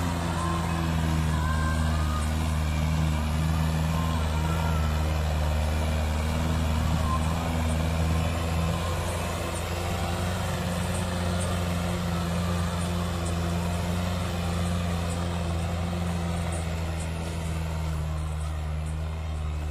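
Mahindra tractor's diesel engine running steadily as it pulls a loaded trolley, getting a little quieter near the end as it moves away.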